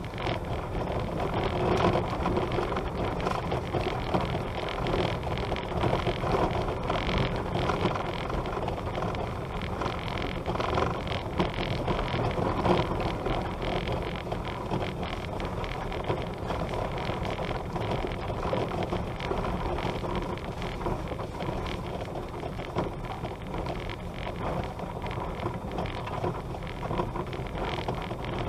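Vehicle travelling over a dirt and gravel road: steady tyre and road noise with many small crunches and rattles.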